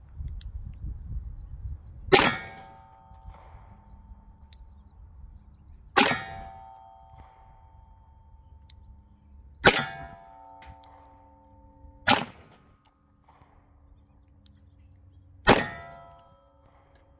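Five shots from a Charter Arms Mag Pug 3-inch revolver firing Federal .38 Special +P 158-grain semi-wadcutter hollow points, spaced two to four seconds apart. Each shot has a ringing metallic tail.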